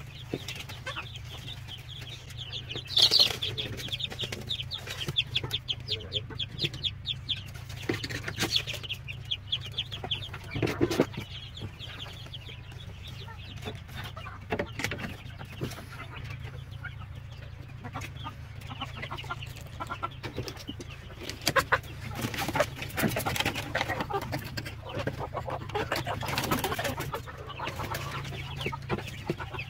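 Chicks peeping in quick runs of high chirps, with chicken clucking.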